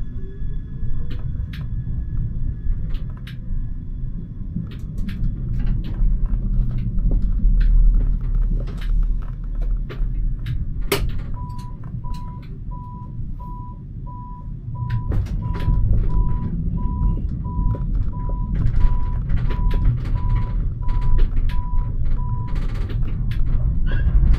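Siemens Avenio tram running, a low rumble with scattered clicks and knocks, its motor whine rising in pitch near the start as it pulls away. About halfway through, an electronic beeper starts, sounding evenly at a little under two beeps a second for about eleven seconds.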